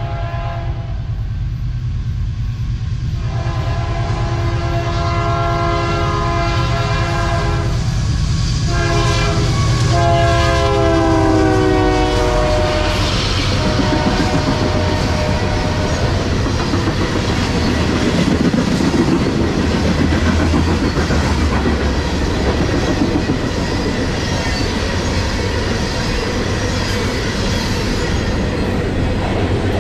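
Union Pacific coal train passing at speed. The locomotive horn sounds three long blasts, the last dropping in pitch as the locomotives go by. Then the hopper cars rumble past with a steady clickety-clack of wheels on rail joints.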